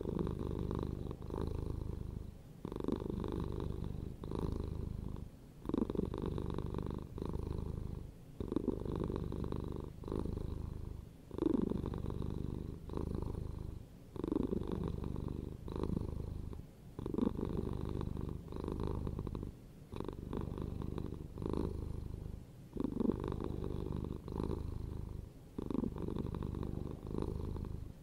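Domestic cat purring, in repeated cycles about two seconds long, each broken by a brief pause.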